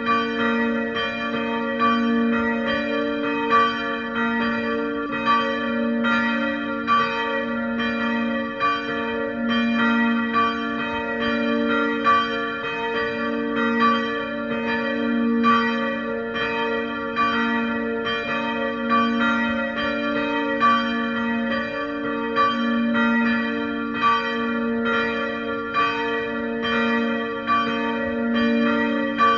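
Two church bells swinging and ringing together, their strikes overlapping in a steady, continuous peal with a sustained hum.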